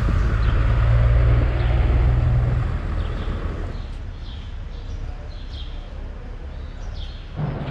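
BMW F700GS motorcycle's parallel-twin engine running as the bike rolls slowly, with rushing noise over it. After about three seconds it gives way to a quieter steady low hum with a few faint high chirps.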